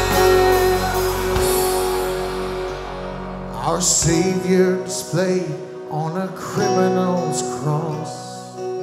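Live worship band playing: sustained chords over bass and drums, whose low end drops away about four seconds in. Strummed acoustic guitar and keyboard carry on, with singing.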